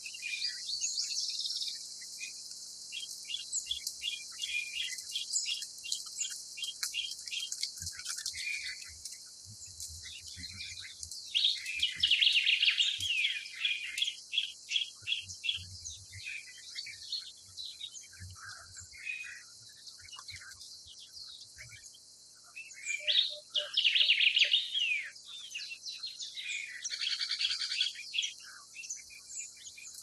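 Lories calling: runs of short, quick chirps and two loud bursts of harsh screeching, about twelve and twenty-four seconds in, over a steady high hiss.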